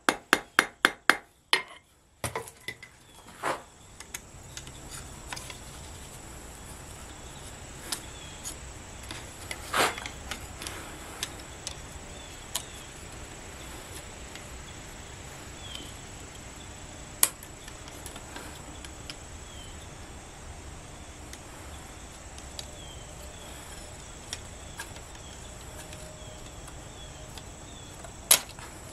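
Hand hammer striking hot steel on an anvil, about three ringing blows a second, stopping about a second and a half in. After that, single light metallic clinks and taps come every few seconds as tongs and scrolling pliers knock against the anvil while the spiral pendant is bent, over a steady low hum.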